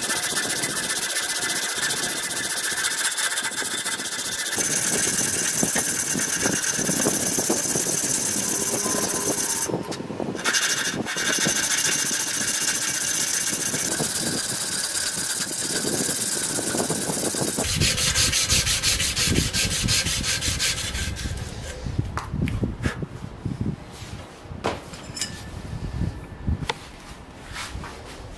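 A strip of sandpaper pulled back and forth around a wooden knife handle, a steady rasping rub with a brief break partway through. About two thirds of the way in the rubbing turns lower and rougher, then dies down to scattered taps and handling knocks near the end.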